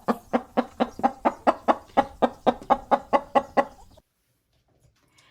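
Hen clucking in a rapid, even run of short clucks, about four or five a second, that stops about four seconds in.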